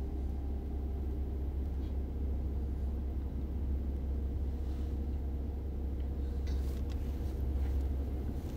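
Steady low rumble and hum of kitchen background noise, with gas burners lit under the pots. A few faint clicks come near the end.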